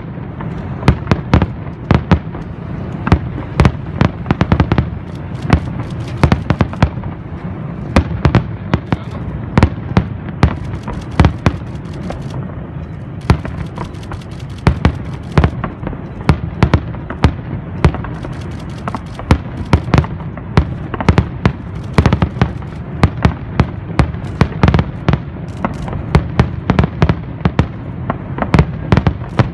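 Fireworks going off continuously: a rapid, irregular barrage of sharp cracks and bangs, several a second, over a steady low rumble of distant bursts.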